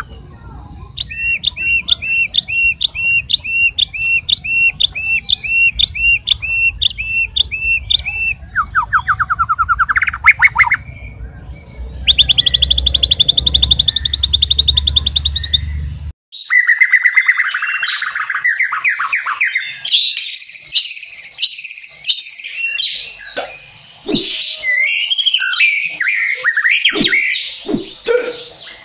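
White-rumped shama (murai batu) singing hard: a run of identical whistled notes at about two a second, then a rising trill and a fast buzzy trill. After a sudden break about sixteen seconds in comes a rich, varied phrase of whistles mixed with short clicking notes.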